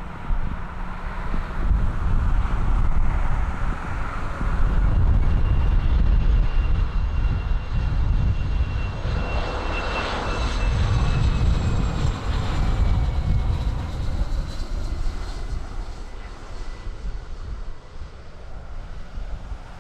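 An aircraft passing by with a steady engine whine that falls slightly in pitch as it goes, loudest about ten seconds in. Low wind rumble on the microphone runs underneath.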